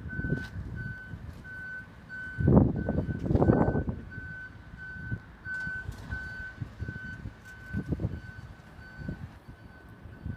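A vehicle's reversing beeper sounding a steady, evenly spaced high beep, about two a second, with bursts of low rumbling noise over it, loudest about two and a half to four seconds in.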